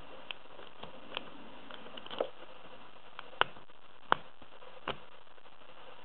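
Lock pick clicking and scraping against the pins inside a pin-tumbler lock: a few scattered, irregular small metallic ticks, the two sharpest about three and a half and four seconds in.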